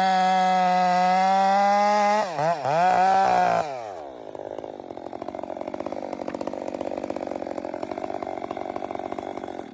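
Two-stroke chainsaw cutting hard timber at full throttle, its revs dipping and recovering a couple of times as it bogs in the cut. About four seconds in it drops back to a rapid, pulsing idle.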